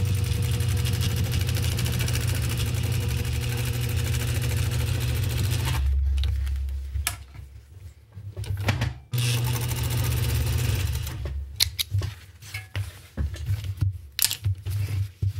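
Juki DDL-555 industrial straight-stitch sewing machine stitching through heavy strap webbing at a steady speed for about six seconds, then stopping with a brief low hum. A second short run of stitching follows about nine seconds in, and sharp clicks and rustles of the work being handled and trimmed come between and after the runs.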